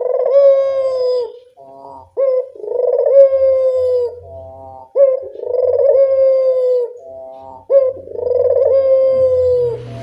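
Puter dove (collared dove) cooing: a short rising note followed by a long held coo that sags slightly in pitch, repeated about every two and a half to three seconds.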